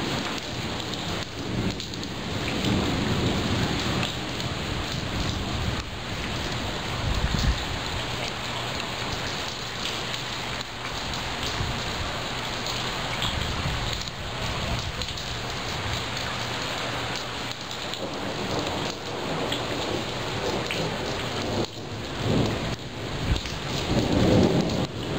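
Monsoon thunderstorm: steady rain falling, with low rolls of thunder swelling and fading, the loudest near the end.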